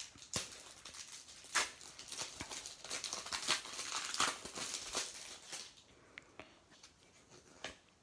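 Plastic-foil wrapper of a Match Attax trading-card pack crinkling and tearing as it is pulled open by hand, in irregular rustles for about five and a half seconds. After that comes quieter handling of the cards, with a few small clicks.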